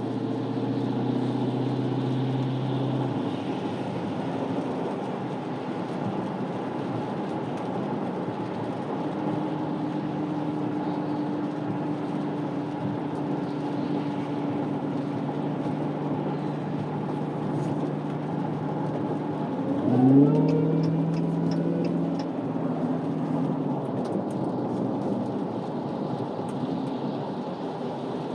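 Supercharged HEMI V8 of a Dodge Challenger SRT Hellcat Redeye running at steady revs under a constant road hiss. About twenty seconds in it revs sharply up as the car accelerates, then settles back to a steady drone.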